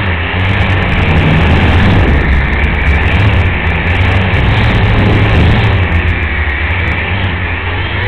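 Small Altitude 2.0 camera quadcopter in flight: a steady propeller whir under heavy low wind rumble on its onboard microphone.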